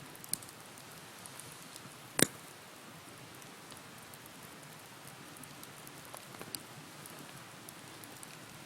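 Wood bonfire burning with a steady hiss and small scattered crackles, and one loud sharp pop about two seconds in.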